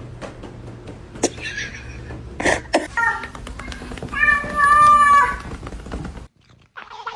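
A cat meowing: a few short calls and sharp clicks, then one long, loud meow about four seconds in.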